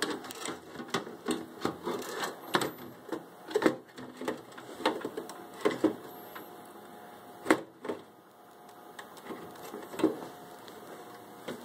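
Metal clicks and knocks of a PC power supply being handled and fitted back into the computer case, closely spaced at first and then fewer, with two sharper knocks in the second half.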